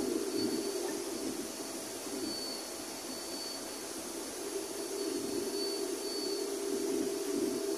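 Steady whooshing drone of fans and air extraction on a digital label press standing idle during a substrate change, with a faint thin high whine above it.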